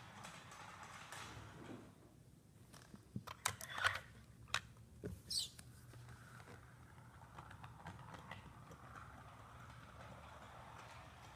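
A handful of sharp clicks and light knocks from a LEGO rubber-band-powered car on a wooden floor, bunched about three to five seconds in, with one brief squeak among them. Faint room tone fills the rest.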